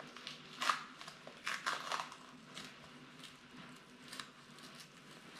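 Crinkling and rustling of an adhesive surgical dressing and its gauze being slowly peeled off the skin and crumpled in the hand: a run of short, scattered crackles, the loudest a little under a second in.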